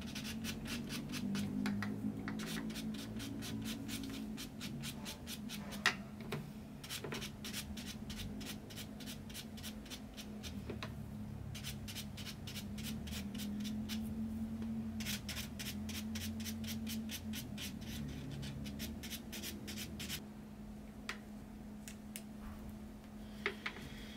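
Electric nail drill running with a steady hum while its bit grinds at a fingernail, making rapid, even scratchy ticks in stretches of a few seconds with short pauses between. There is one sharp click about six seconds in.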